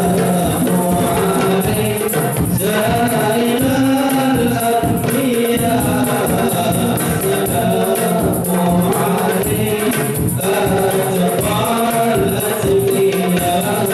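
A male group singing an Islamic qasidah together into microphones, accompanied by hand-played frame drums and a large barrel drum keeping a steady rhythm.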